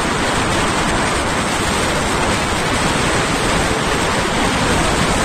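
Steady wind noise buffeting the microphone of a motorbike riding along at speed, an even rush with no clear engine note in it.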